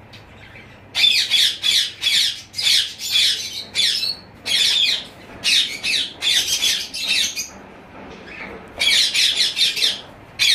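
A flock of small caged parrots squawking: runs of harsh, shrill calls from about a second in, a lull a little past halfway, then another burst near the end.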